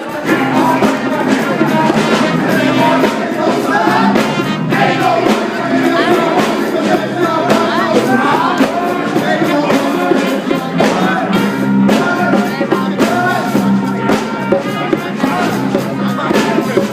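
A live band jam with a drum kit and melodic parts, playing loudly and without a break.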